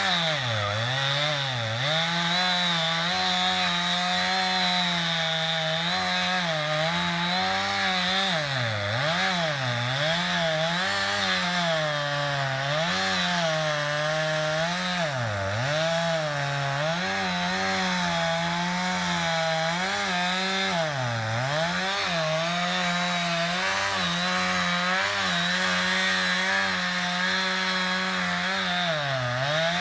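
Chainsaw running hard as it cuts into a tree. It holds a steady high pitch that dips briefly again and again as the chain loads in the cut or the throttle eases.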